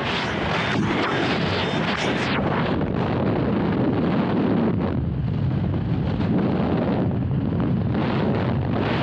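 Loud, rumbling noise that swells and eases unevenly, typical of wind buffeting the microphone.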